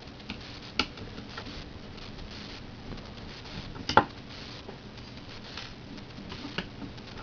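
Small screwdriver working tiny screws out of a plastic Xbox 360 chatpad: faint scratching with a few sharp clicks of metal and plastic, the loudest about four seconds in.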